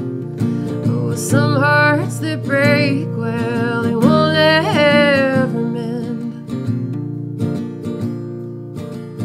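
Acoustic guitar strumming with a woman singing over it; her voice comes in about a second in, holds and bends long notes, and drops out around the middle, leaving the guitar playing alone.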